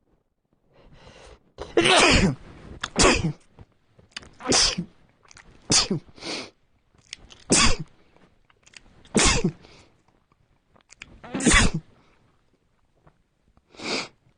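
A man sneezing over and over in a fit, seven or eight loud sneezes one to two seconds apart, with short quieter sounds between them. The sneezes are set off by a tool tickling the inside of his nostril.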